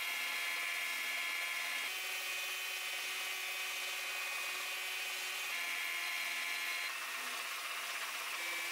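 Benchtop belt and disc sander running with a steady whine as a steel axe head is ground against the sanding belt. The tone of the grinding changes a few times.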